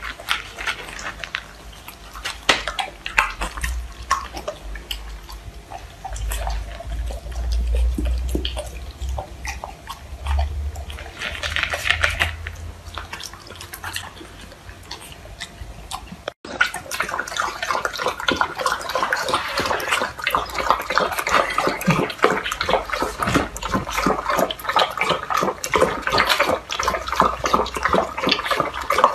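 Golden retriever crunching dry kibble from a bowl, with a small puppy eating beside it. After a sudden cut about halfway through, both dogs are lapping liquid from small cups in rapid wet laps.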